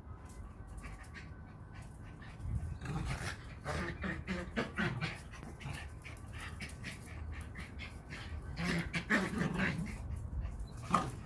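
Two schipperkes play-wrestling, their playful vocal noises coming in two bursts, a few seconds in and again near the end, with short light clicks scattered between.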